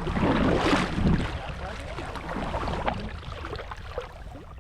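A paddle stroke rushing and splashing through lake water, loudest in the first second, followed by quieter water sounds.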